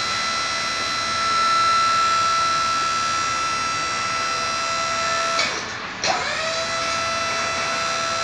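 Portable geotechnical drill rig's motor running with a steady high-pitched whine. About five seconds in it winds down, and after a sharp click it spins back up to speed.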